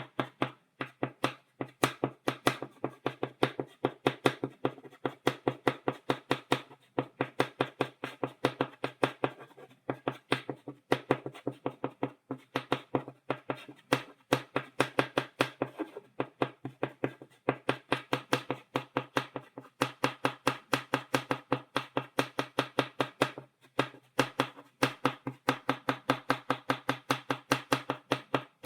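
Stick of chalk tapping rapidly on a blackboard, stippling dots, in quick runs of sharp taps with short pauses between runs.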